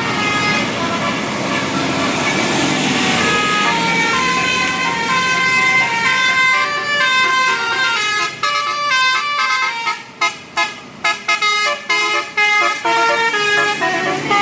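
Bus telolet Basuri musical horn playing a melody in stepped, sustained notes over road noise. From about eight seconds in the notes turn short and choppy, with brief gaps between them.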